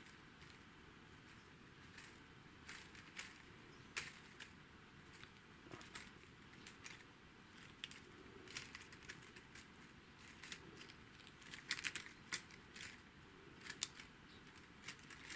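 Faint, scattered clicks and rustles of sequin leaves on thin wire branches being bent and spread by hand, with a denser run of clicks about twelve seconds in.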